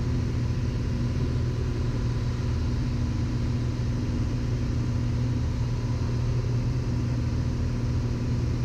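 Steady drone of a single-engine Piper aircraft's engine and propeller in level cruise, heard inside the cabin: a deep even hum with a faint steady tone above it, unchanging throughout.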